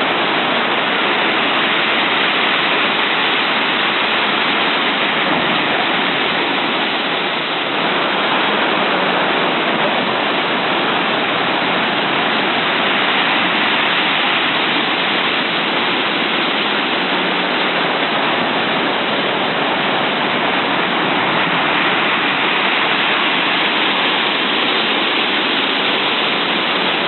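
A stormy sea: a loud, steady rushing roar of surf, with no single wave break standing out.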